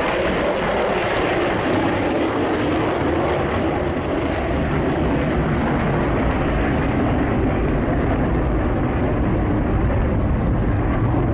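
Two Mitsubishi F-2 fighters' single-engine F110 turbofans roaring steadily as the pair climb away together after a formation takeoff. The sound is a loud, even rumble that does not fade.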